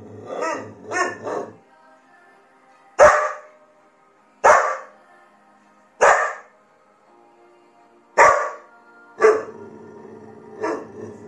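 A dog barking six times, single sharp barks a second or two apart, over faint music. The barks are a reaction of dislike to the music rather than singing along, as the owner reads them.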